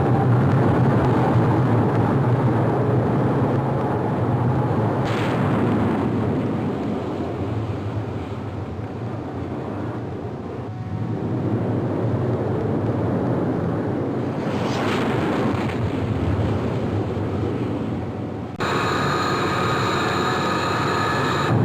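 Airplane engines at takeoff power: a loud, steady rushing noise over a deep hum, easing a little in the middle. About three seconds before the end it cuts abruptly to a passage with a steady high engine whine over the rush.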